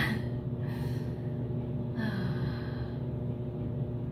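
A woman's breaths, a sharp intake at the start and soft breathy sighs about one and two seconds in, over a steady low hum.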